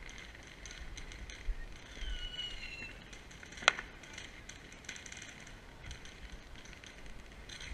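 Sparkler fizzing and crackling faintly, with one sharp snap about three and a half seconds in.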